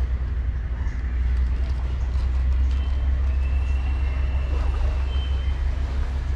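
A steady low rumble with no clear rhythm. A thin, high whistling tone sounds faintly for a couple of seconds in the middle.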